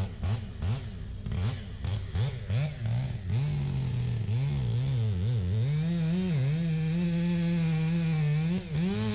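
An engine revved up and down in quick blips, then held at a high, steady speed for the last few seconds.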